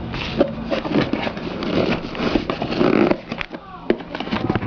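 A cardboard box and its packaging being opened and handled, with rustling and many scattered small clicks and crackles. A steady low hum runs underneath.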